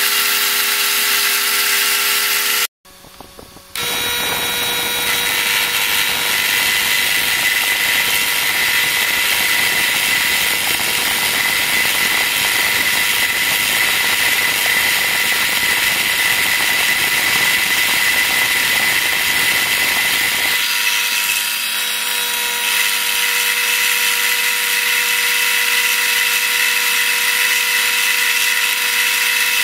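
Small benchtop milling machine cutting an aluminium-alloy block: a steady motor whine over the rasping noise of the rotating cutter. The sound cuts out briefly about three seconds in, and about twenty seconds in the deeper cutting noise drops away, leaving the whine.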